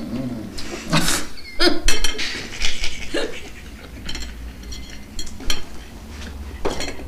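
Forks clinking against plates and glasses at a dinner table in a run of short, irregular clicks, with a few brief murmurs from the diners.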